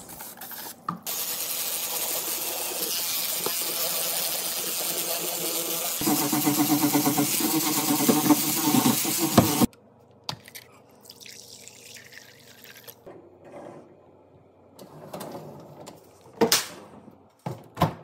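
Water running hard from a sink faucet over dishwasher filter parts being rinsed and scrubbed, getting louder and fuller about six seconds in, then cutting off suddenly. After that come quiet handling noises and a couple of sharp clicks near the end.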